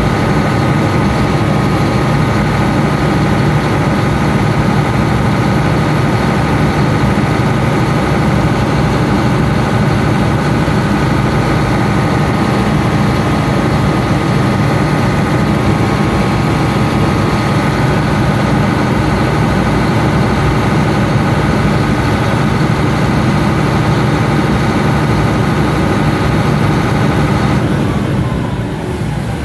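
Caterpillar generator set engine running steadily off-load at about 1500 rpm. Near the end it is shut down and the engine note drops and falls in pitch as it winds down.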